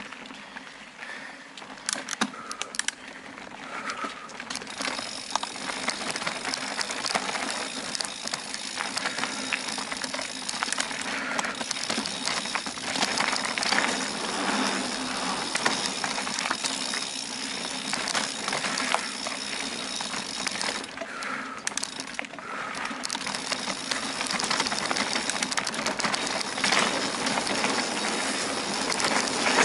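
A bicycle being ridden over a rough dirt trail: a steady rush of tyre and rolling noise with dense rattling and ratchet-like clicking from the bike's mechanism, getting a little louder toward the end.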